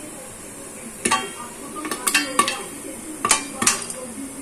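Corn kernels popping in hot oil inside a covered aluminium pressure cooker. About half a dozen sharp, irregular pops knock against the metal and ring briefly, over a faint steady sizzle.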